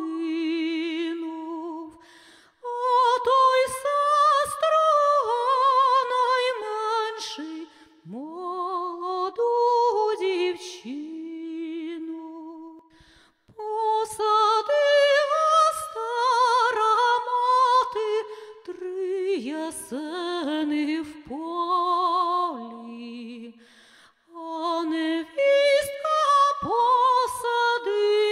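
A woman singing solo and unaccompanied, a slow Ukrainian folk song in long phrases with vibrato on the held notes, pausing briefly for breath three times.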